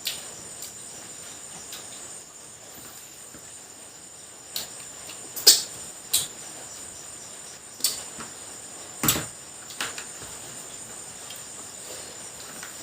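Crickets chirring steadily as a high continuous tone. About six sharp cracks and clicks fall through the middle, the loudest about a third of the way in; these are the sounds of eating crab, its shell cracking.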